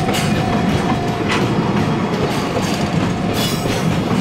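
Freight train hauled by a locomotive running past on the track, its wheels clattering over the rails.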